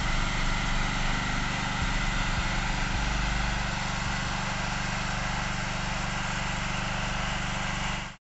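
A small engine running steadily at a constant speed, cutting off abruptly just before the end.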